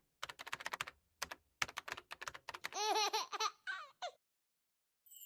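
Keyboard-typing sound effect: two quick runs of sharp clicks, followed by a short high-pitched giggle effect of rapid rising-and-falling notes, edited in over dead silence.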